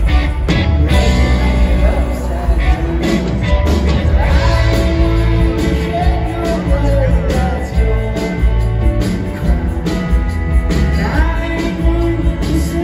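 Rock band playing live through a large PA, heard from the audience: electric guitars, keyboards, bass and drums, with lead and backing vocals singing.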